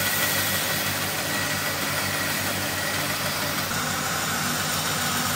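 Electric grinder running steadily: a constant motor hum under an even, hissing grind.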